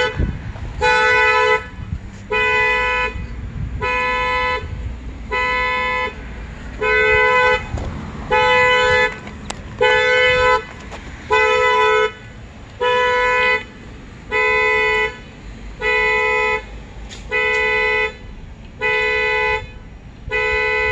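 2015 Acura ILX's car horn honking over and over in even blasts about every 1.3 s, its security alarm set off during key programming.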